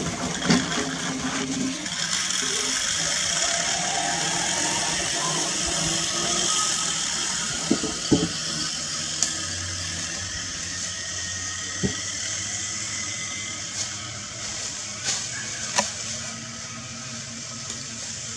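Steady whirring hiss of a log load's pulley running along a long steel skyline cable. It builds in about two seconds in and fades away over the second half, with a few sharp knocks.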